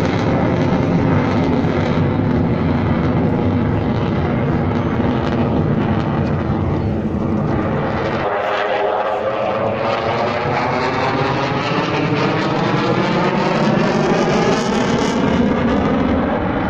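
Spanish Air Force EF-18 Hornet's twin General Electric F404 turbofans, a loud, continuous jet roar as the fighter flies its display. The tone sweeps and phases as it passes, rising through the second half, and the deep rumble thins about eight seconds in.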